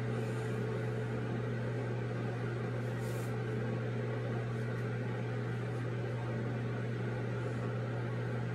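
Steady low hum with an even hiss from a background noise source left running in a small room, unchanging throughout.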